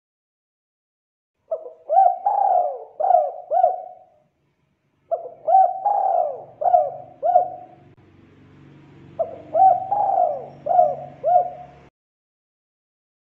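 Spotted dove cooing: three phrases of about five short coos each, every coo rising and falling in pitch, with a second or so of silence between phrases.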